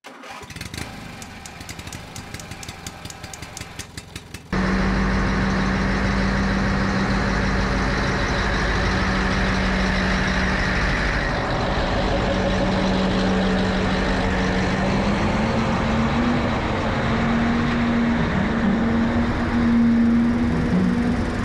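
A Tadano crane's diesel engine running steadily, with a strong low hum whose pitch steps up slightly about two-thirds of the way through. Before it starts, there are about four seconds of quieter rapid clicking.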